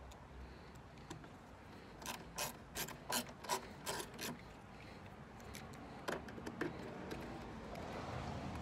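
Hand screwdriver turning a screw into the crate's wooden slat, giving a quick run of about eight clicks about two seconds in and a few more a little later.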